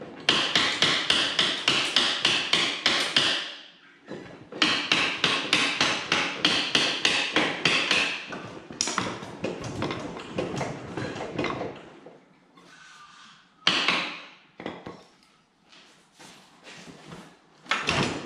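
Rapid, regular metallic hammering, about five strikes a second, in two runs of three to four seconds each, followed by a few scattered knocks and a single sharp bang.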